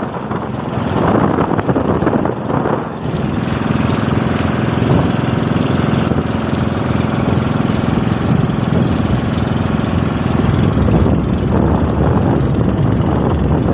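A small boat's engine running steadily while under way. Wind buffets the microphone during the first few seconds.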